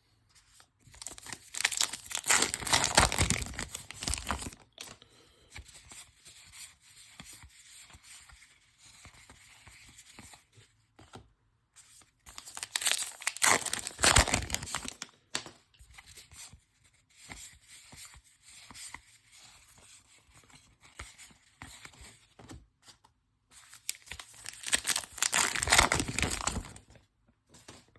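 Wrappers of 2022 Topps Allen & Ginter baseball card packs being torn open, three times about ten seconds apart, each tear lasting two or three seconds. Softer crinkling comes in between.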